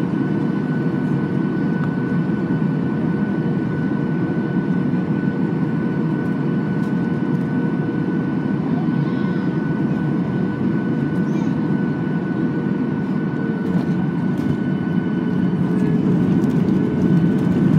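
Cabin noise of a Boeing 737-800 on final approach, heard from a seat over the wing: a steady rush of air and CFM56 engine noise with a thin steady whine above it, growing a little louder near the end.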